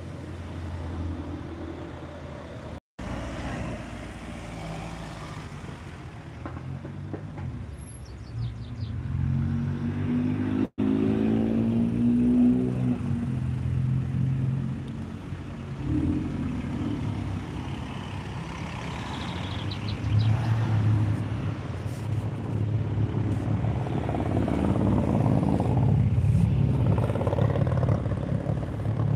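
Modified cars driving past one after another, engines revving and accelerating with exhaust notes rising in pitch, louder towards the end. The sound drops out briefly twice, about three and eleven seconds in.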